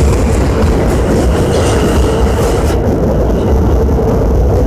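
New York City subway train passing at close range along a station platform: a steady loud rumble of wheels on rail with a steady hum in it. The higher hiss drops away about three seconds in.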